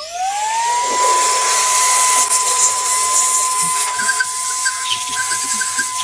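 NUUK REN GO cordless mini vacuum cleaner switched on in blower mode. Its motor whine rises in pitch over about a second, then settles into a steady high whine over a rush of air.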